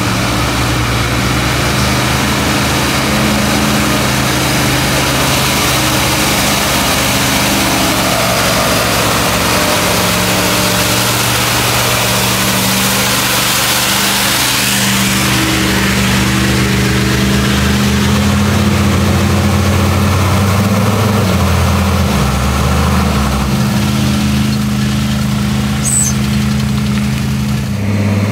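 Heavy off-road truck engine working hard on a hill climb: a steady, continuous engine drone whose pitch shifts up and down several times in the second half.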